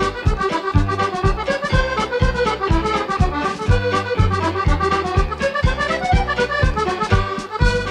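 Background music with a steady bass beat and a melody over it.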